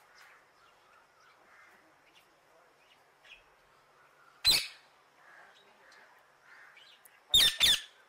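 Amazon parrot calling: one loud, harsh squawk about halfway through and a quick double squawk near the end, over faint chirping of other birds.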